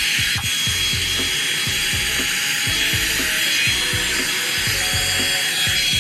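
InfinitiPro by Conair hot air brush (a blow dryer brush) running: a steady rush of air with a thin high whine from its fan motor. Background music with a steady beat plays underneath.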